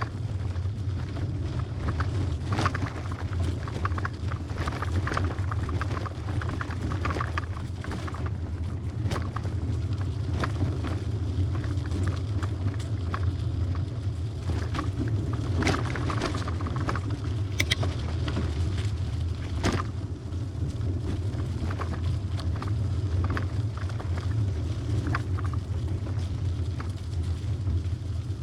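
Hybrid bicycle being ridden over a bumpy dirt trail: a steady low rumble of wind and tyres, broken by frequent short rattles and clicks from the bike jolting over roots and rough ground.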